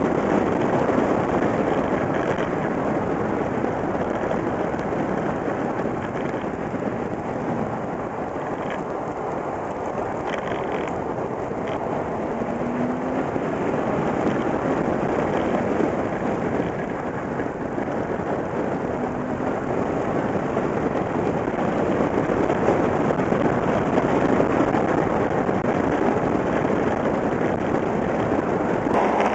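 Steady rush of wind and tyre noise from a moving car, picked up by a camera mounted on the outside of the body. The level swells and eases gently as the car goes on.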